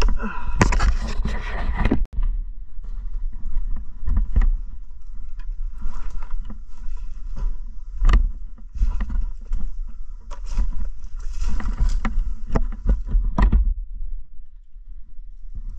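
Crunching and rustling of dry brush, twigs and leaf litter underfoot in irregular bursts, over a heavy low rumble of wind and movement buffeting the helmet-mounted microphone.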